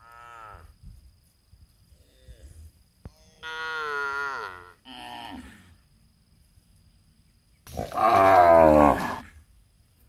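Cattle mooing: a short moo at the start, a longer moo about three and a half seconds in followed closely by a short one, and the loudest, longest moo near the end, falling in pitch.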